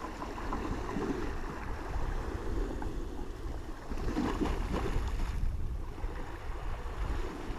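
Wind rumbling on the microphone over the steady wash of sea waves against a sea wall.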